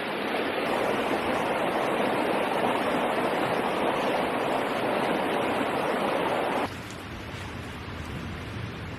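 Creek water rushing steadily. About two-thirds of the way in it cuts off abruptly, giving way to a quieter, lower steady hiss.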